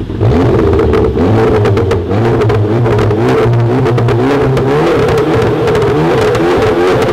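2017 Volkswagen Golf GTI (MK7) turbocharged four-cylinder revved and held up through a Corsa Performance cat-back exhaust, the note loud and wavering, with a rapid crackle of pops throughout from the sport-mode pops-and-bangs tune.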